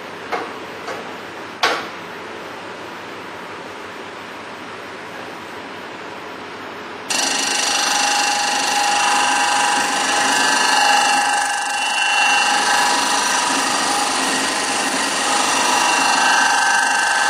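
A few sharp clicks as the disc sander's table lever is tightened. About seven seconds in comes a sudden switch to loud, steady sanding noise: a wooden block pressed against the spinning abrasive disc.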